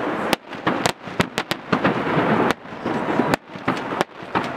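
Firecrackers packed into the Böögg, the snowman effigy on the burning bonfire, going off in a rapid, irregular string of sharp bangs.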